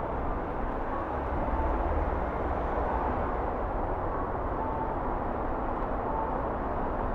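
Steady city street traffic, a low rumble and hiss, with a few faint short tones at irregular intervals; no clock bell is striking.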